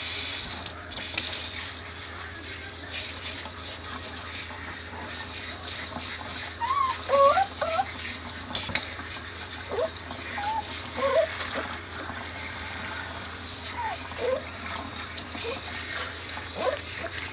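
Water hissing from a pull-out kitchen sink sprayer and splashing over a wet puppy's coat and the stainless steel sink, hardest at the very start. From the middle on the puppy gives a string of short, high whimpers.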